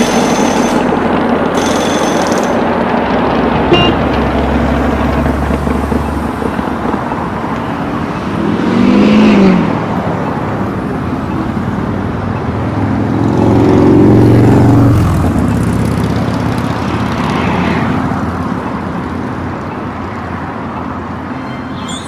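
Recorded road-traffic sound effect: a continuous wash of traffic noise, with a car passing close by twice, about nine and fourteen seconds in, its engine pitch rising and then falling as it goes past.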